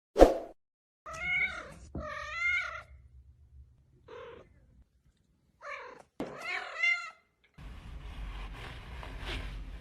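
A loud thump, then a cat meowing about five times, the calls bending up and down in pitch. Near the end a steady background hiss comes in.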